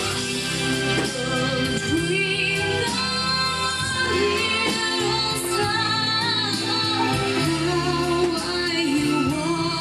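Song played by a band, with a female voice carrying the melody.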